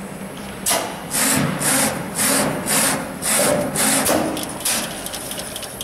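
Channel letter bending machine working a stainless steel strip: a quick run of about ten short, hissy mechanical bursts, a little over two a second, over a steady low machine hum. The bursts start under a second in and stop about a second before the end.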